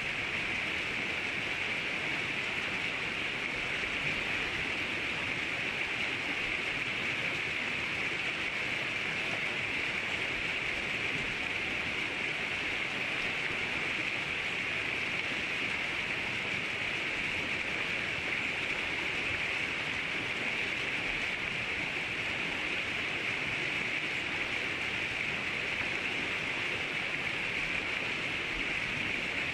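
River water rushing steadily, an even hiss with no change.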